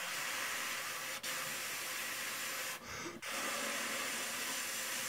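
Air blown out steadily through the lips onto a hand, with no note played: a breath exercise for trumpet. It comes as two blows with a brief break between them, a short pause for breath about three seconds in, then a longer blow, in the rhythm of two half notes and a whole note.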